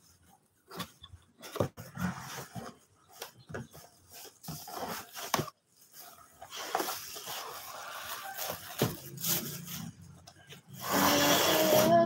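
Packing noise: plastic wrapping crinkling and a cardboard box knocked and handled as a portable cassette gas stove is put back into it, in a string of short knocks and rustles. About a second before the end a loud, wavering high-pitched voice-like sound starts.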